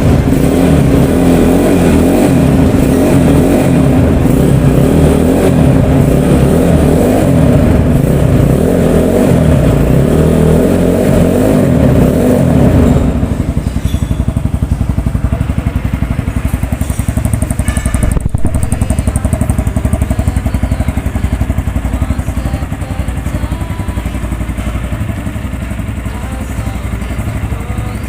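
Vento Crossmax 250 Pro dual-purpose motorcycle's engine running just after its electric start. It is louder and busier for about the first thirteen seconds, then settles to a quieter, steady idle. There is a single sharp tick about 18 seconds in.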